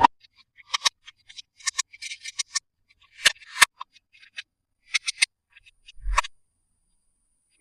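Hands unboxing small plastic toys: sharp clicks and taps with short bursts of crinkling packaging, the loudest pair of clicks about three and a half seconds in, and a soft thump about six seconds in.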